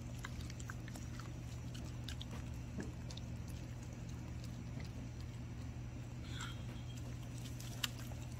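Dog mouthing and chewing a piece of desalted gompi seaweed: soft, scattered clicks and smacks of its mouth at irregular intervals, with one sharper click near the end, over a steady low hum.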